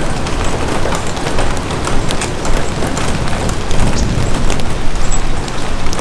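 Rain pattering on an umbrella: a dense, steady patter of many sharp, irregular drop impacts, with a low rumble underneath.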